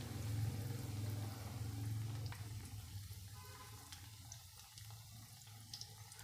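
Besan-battered green chilies deep-frying in hot oil in an iron kadhai, a steady sizzle. A low hum sits under it and fades after about two and a half seconds, with a few faint clicks.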